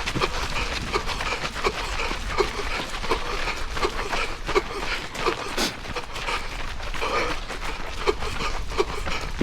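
A runner's heavy, rhythmic panting with a wheeze in it, a short squeaky note on the breaths about twice a second, along with the tap of footfalls.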